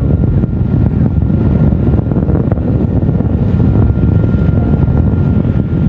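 Antares rocket's first-stage engines during ascent at full thrust: a loud, steady, deep rumble.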